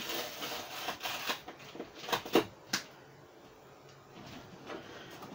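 Hands picking and scratching at duct tape on a cardboard box, the cardboard rustling, with a few sharp clicks a little after two seconds in.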